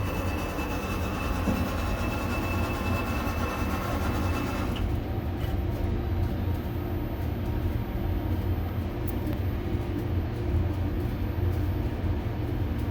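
Trak 1630 lathe carriage traversing along the Z axis, its drive giving a steady high whine for about five seconds and then stopping, over a steady low machine hum.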